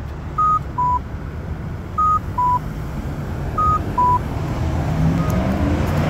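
Campbell accessible pedestrian signal push button sounding a repeating two-note electronic beep, a higher note then a lower one, about every second and a half; the last pair is faint. Low traffic noise rises toward the end.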